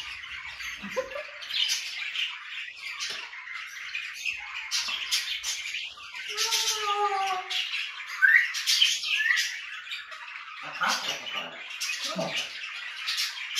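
Pet parrots calling: budgerigars chattering and chirping throughout, with louder whistles and squawks over them, including a falling multi-note call about six seconds in and a sharp rising whistle about eight seconds in, typical of an African grey parrot.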